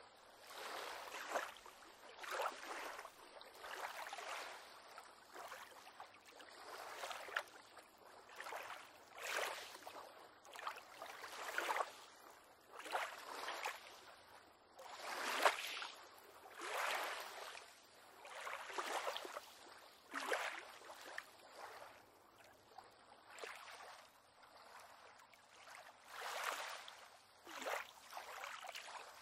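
Small waves lapping and splashing against a pier on calm water, an irregular slap or slosh every second or two.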